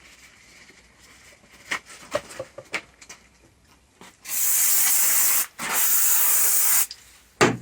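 Light handling clicks, then two steady bursts of an aerosol spray can, about a second each with a short break between: cleaner being sprayed onto a greasy new breaker bar to strip its factory lubricant.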